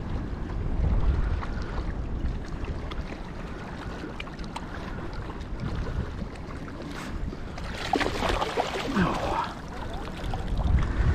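Wind rumbling on the microphone over shallow water; about eight seconds in, a burst of splashing as a hooked Australian salmon thrashes at the surface and is scooped into a landing net.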